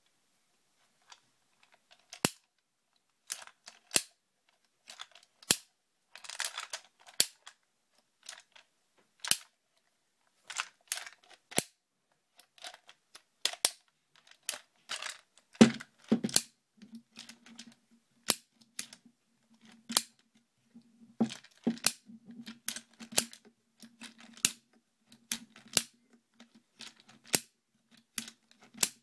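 A Butler Creek 10/22 magazine loader feeding .22LR rounds one at a time into a Ruger 10/22 rotary magazine: a sharp plastic-and-metal click about every one to two seconds as each cartridge snaps in, with light rattling of cartridges in between. A low steady hum comes in about halfway through.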